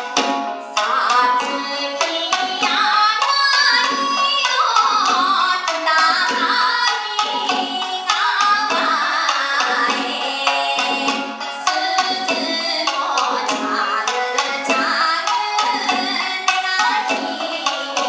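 Japanese folk song (min'yō) sung by a woman with a wavering, ornamented melody, accompanied by plucked shamisen, shakuhachi flute and drum; the singing comes in about a second in.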